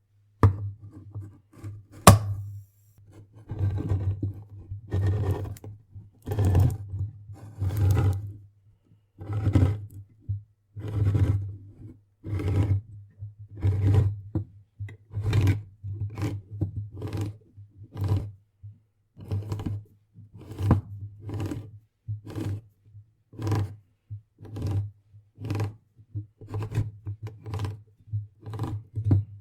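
Manual can opener cutting around a tin lid: a sharp click about two seconds in, then a long series of short crunching strokes as the handle is turned. The strokes come about every second and a half at first and quicken in the second half.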